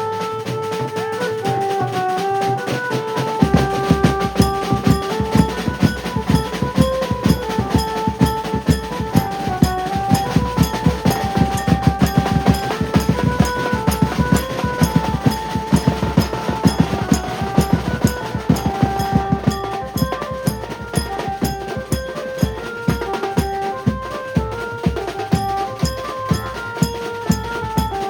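A Maharashtrian banjo party band playing: a melody line of held notes stepping up and down over drums. The heavy drum beat comes in about three and a half seconds in.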